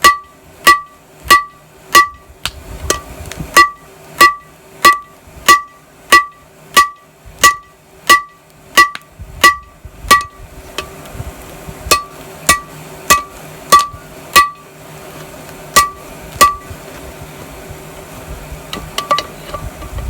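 Hand hammer blows on hot 1080 steel resting on a railroad-track anvil, each strike ringing brightly off the rail. The blows come steadily about every 0.6 s, then turn scattered about halfway through, with a pause and a few lighter clinks near the end.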